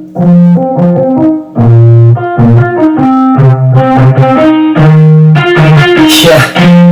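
Intro music: the instrumental opening of a hip-hop song, with keyboard notes over a repeating bass line. Drums with cymbals come in about five and a half seconds in.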